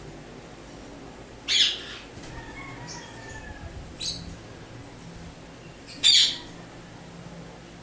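Indian ringneck parrot squawking three times: two loud squawks about four and a half seconds apart with a softer one between them.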